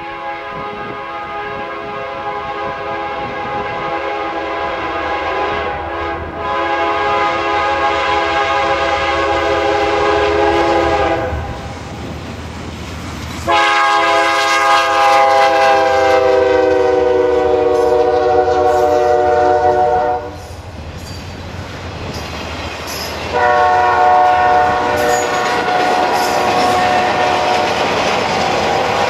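Norfolk Southern GE C40-9W locomotive's multi-chime air horn blowing three long blasts for a grade crossing, the second sagging slightly in pitch as the locomotive passes. Beneath the horn, the low rumble of the train and the clickety-clack of wheels over rail joints.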